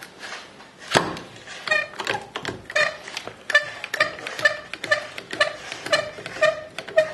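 A clamp being tightened to hold a block of wood down on a drill press: a series of sharp clicks, about two a second, each with a short metallic ring.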